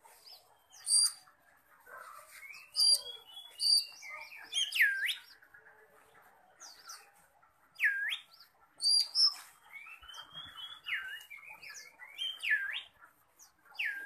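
Oriental magpie-robin (kacer) singing loudly in its cage. Its varied song of sharp whistles swoops down and back up, mixed with arched notes and short high chirps, coming every second or two.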